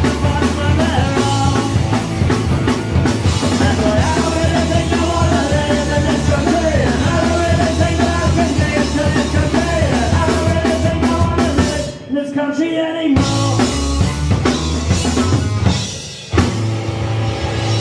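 Live punk rock band playing: distorted electric guitars, bass and drum kit. The band stops for about a second around two-thirds of the way through, leaving one held note ringing, then drops out again briefly near the end before coming back in.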